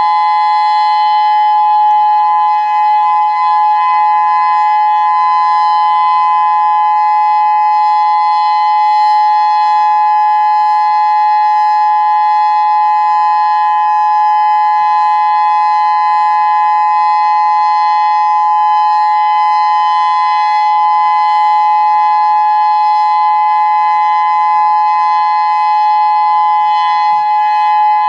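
Federal Signal Modulator 6024 electronic warning siren sounding a steady alert tone: a loud two-note chord held at constant pitch, with no rise or fall.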